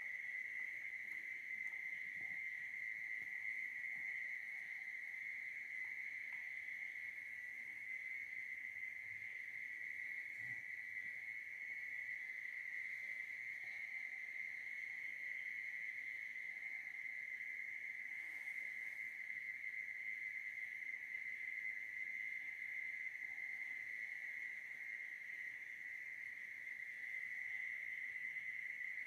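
Faint, steady, high-pitched trill of night insects such as crickets, unbroken throughout.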